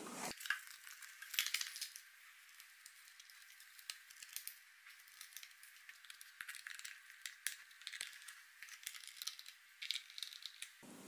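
Screwdriver turning small screws into the black plastic battery cover of a kid's electric ride-on bike, heard as faint, scattered clicks and rattles of metal on plastic.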